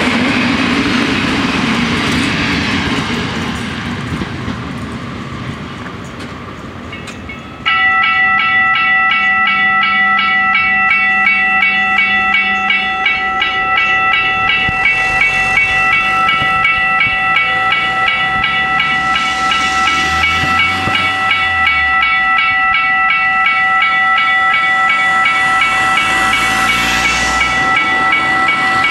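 Regional electric train running past and fading away. About eight seconds in, the level-crossing bells start ringing, a rapid, steady ringing that goes on unbroken while the barriers rise, with cars driving over the crossing near the end.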